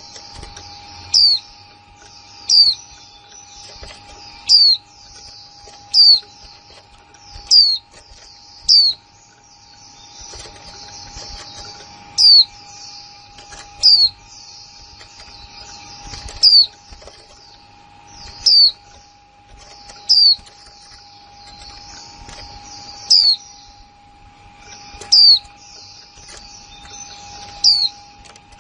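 Female white-eye calling: a sharp, high, downward-sweeping 'kick' note every one and a half to three seconds, about fifteen in all, over continuous soft, high twittering.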